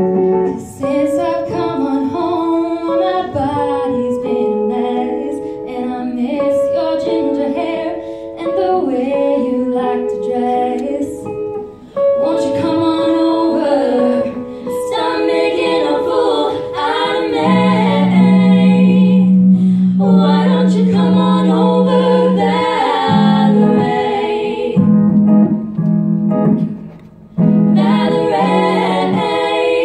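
Three female vocalists singing a song together into microphones, several voices sounding at once, amplified through the hall's sound system.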